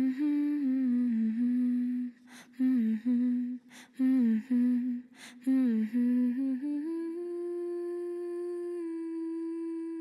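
Wordless humming of a slow melody in short gliding phrases, with a brief breathy hiss between some of them. About seven seconds in it settles on one long held note.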